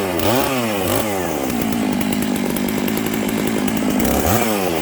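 Freshly rebuilt Stihl MS 650 chainsaw's two-stroke engine running cold, idling with short throttle blips: two quick revs up and back down just after the start and another near the end. It starts easily and runs well for a cold engine.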